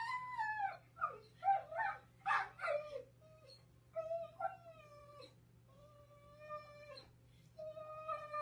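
A dog's howling, whining vocalisations, a run of drawn-out calls with short yips between, the pitch bending and dropping at the ends of several calls.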